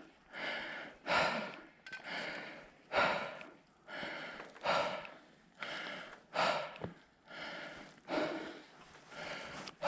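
Heavy, rhythmic panting of a person climbing a steep mountain trail, a strong breath about every two seconds with a weaker one in between: out of breath from the climb.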